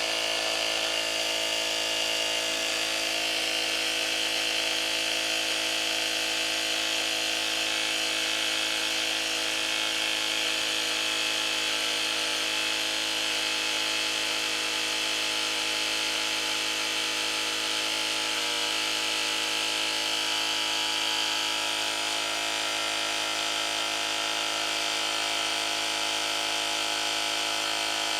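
Budget 12-volt mini air compressor running steadily, pumping up a flat 90/90-21 motorcycle front tyre.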